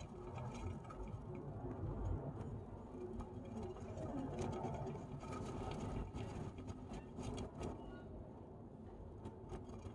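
Pink plastic hamster wheel spinning under a running Djungarian hamster: a steady low rumble with scattered light clicks and rattles.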